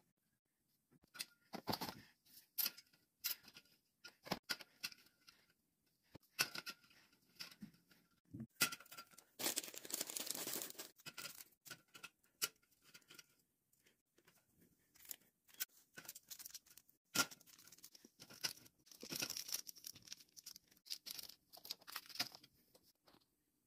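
Quiet, scattered clicks and knocks of drink bottles, cans and snack bags being handled and set on a wire rack, with about two seconds of rustling around nine seconds in.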